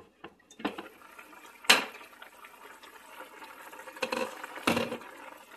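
Glass lid lifted off a pot with a loud clank, then soup bubbling at a steady boil, with a few more knocks of lid or utensil against the pot near the end.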